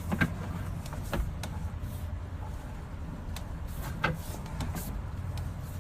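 A steady low hum with scattered light clicks and knocks, as a sewer camera's push cable is fed down a drain line.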